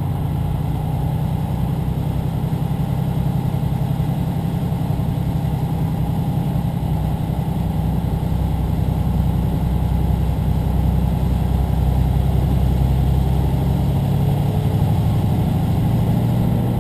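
Vehicle engine and road noise heard from inside the cab, a steady low drone, as it drives slowly through shallow floodwater running across the highway.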